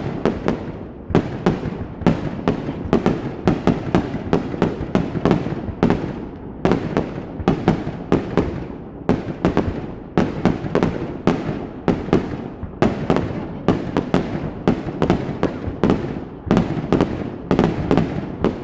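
Aerial fireworks display: a rapid, irregular string of sharp bangs, several a second, over a continuous echoing rumble of bursts.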